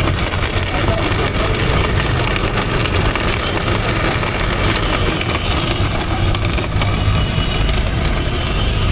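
Electric countertop blender running steadily, churning bel (wood apple) pulp into juice.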